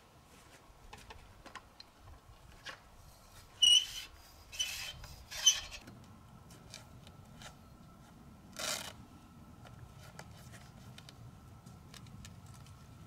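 Canvas car awning being unrolled and handled: three short, loud rasping rubs of fabric about four to six seconds in, another near nine seconds, with faint clicks and taps between.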